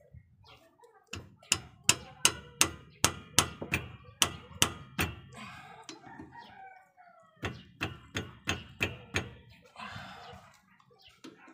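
Sharp metal clicks from tool work on a disc brake caliper during a brake pad change, about three a second in two runs. Between the runs a rooster crows.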